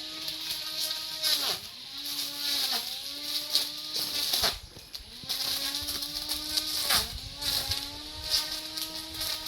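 A lawn mower's motor running with a steady whine that sags in pitch and picks up again several times as the blade works into grass. About four and a half seconds in it drops away briefly, then winds back up.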